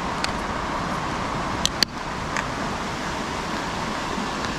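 Steady rushing of a river, with a few small sharp clicks in the first half.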